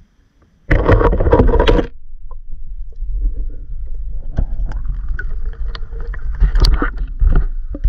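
Water rushing and sloshing around an underwater camera as it is moved in a shallow stream and lifted out. A loud rush comes about a second in, then steady sloshing with scattered knocks from handling.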